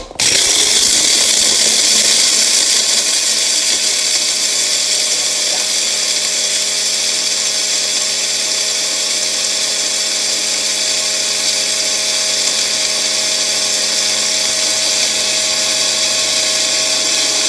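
Magic Bullet personal blender motor switched on as the cup is pressed down, running at a steady high-pitched whine while it grinds whole dry spices into powder.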